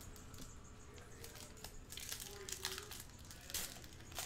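Foil wrapper of a Topps Stadium Club baseball card pack crinkling and tearing as it is ripped open by hand, with the cards inside handled, in a few short crackles.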